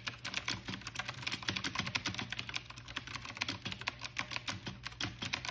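Computer keyboard typing: a rapid, irregular run of key clicks, used as a typing sound effect for on-screen text appearing letter by letter.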